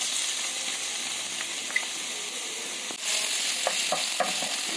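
Chopped garlic sizzling in hot oil in a pan. About three seconds in a wooden spatula starts stirring it: the sizzle grows louder, with light taps and scrapes of the spatula.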